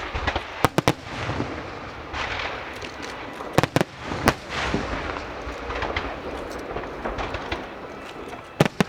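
Aerial fireworks bursting: sharp bangs, a pair soon after the start, a cluster around the middle and another pair near the end, over a continuous crackle and low rumble.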